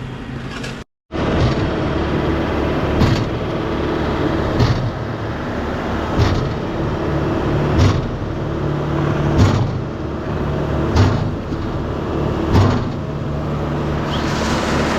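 Concrete pump running steadily while pumping concrete through the hose line, with a knock about every 1.6 seconds as the pump shifts from one stroke to the next.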